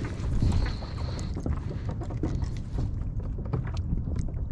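Water lapping against a fishing kayak's hull, with wind buffeting the microphone and scattered small clicks and knocks. A thin, high, steady whine lasts about a second near the start.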